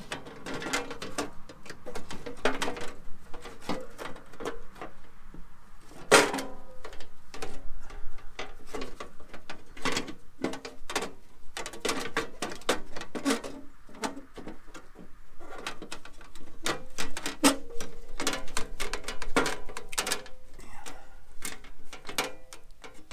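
Irregular clanks, knocks and clicks of an aluminium inner fender panel being handled and worked into place in a Jeep's wheel well.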